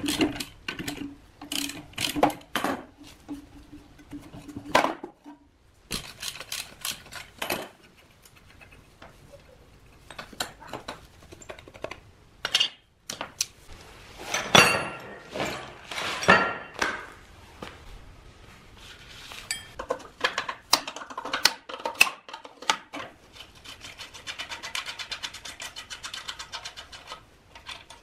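A socket ratchet clicking as it turns a rusty bolt on an old vegetable slicer's metal housing for the first few seconds. Then scattered metallic knocks and clinks of tools and loosened parts being handled.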